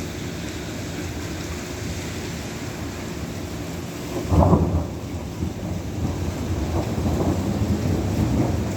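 Heavy rain falling steadily while thunder rumbles, with a short loud peal about halfway through and a low rolling rumble building toward the end.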